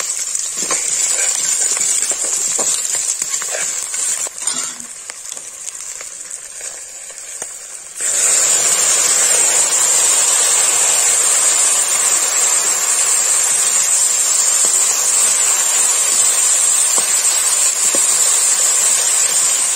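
Food frying in a cooking pan: a sizzle with scattered clicks and taps for the first eight seconds, then a sudden, much louder, steady sizzle to the end.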